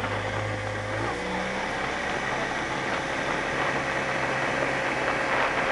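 Small speedboat's engine running under way, its pitch changing about a second in, over a steady rush of wind and water.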